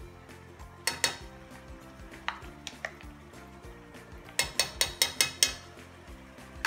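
Wooden spatula knocking against a non-stick pan: a couple of sharp knocks about a second in, a few single ones, then a quick run of about eight near the end, over steady background music.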